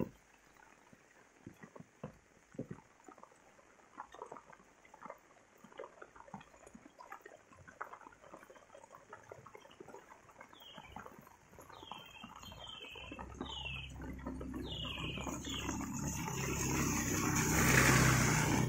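Rain dripping and pattering on a wet lane, with scattered drops. A bird gives a short run of falling chirps midway. From about two-thirds in, a motorbike's engine and tyre hiss grow louder as it approaches, loudest just before the end as it passes close by.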